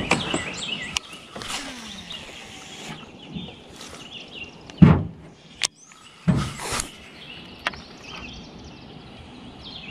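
Small birds chirping over quiet outdoor ambience, with a few sudden knocks and thumps; the loudest thump is about five seconds in.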